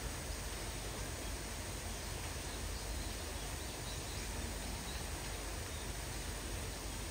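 Steady outdoor background noise: an even hiss with a low rumble underneath, and no distinct knocks or calls standing out.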